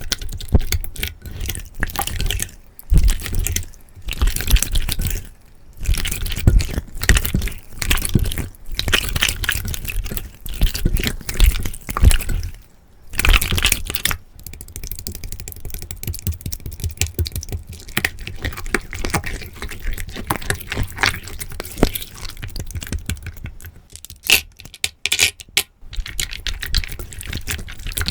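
Slime being squeezed and worked by hand: irregular wet squishing with sticky clicking and crackling pops, in bursts with brief pauses.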